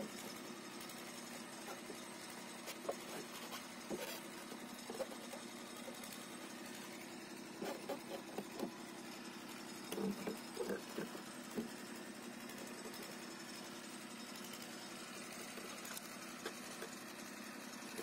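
Light scattered clicks and knocks of a Volkswagen Polo's plastic tail-light housing being handled and pressed into its opening in the body, bunched about eight and ten seconds in, over a faint steady machine-like hum.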